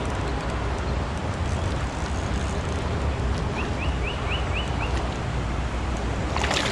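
Steady rushing outdoor noise with a heavy low rumble. About midway a small bird sings a quick run of about six rising chirps. Near the end a burst of rapid clicks and splashy noise starts.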